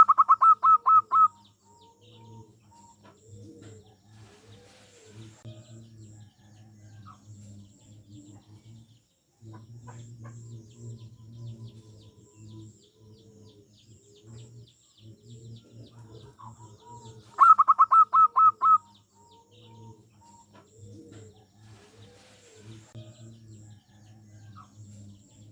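Zebra dove (perkutut) singing: a loud, rapid string of about eight staccato coo notes at the start, repeated once about 17 seconds in. Softer low cooing continues between the phrases.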